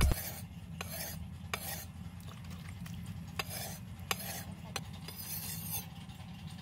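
Steel cleaver blade being sharpened on a whetstone: repeated rasping scrapes as it is stroked back and forth across the stone, with sharp clicks of metal on stone between strokes.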